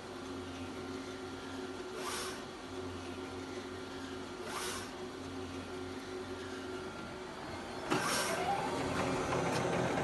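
Mimaki UJF-3042HG UV flatbed printer at work: a steady machine hum with a short swish about every two and a half seconds as the print-head carriage passes. About eight seconds in it gets louder, with a motor whine that rises and then falls.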